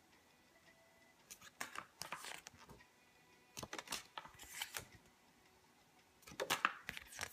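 Cards of an oracle deck being handled, in three short bursts of faint rustling and clicking as the cards are moved and shown.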